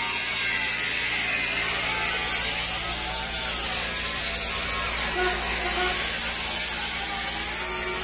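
Angle grinder with a thin cut-off wheel cutting steadily through sheet-metal car body panels.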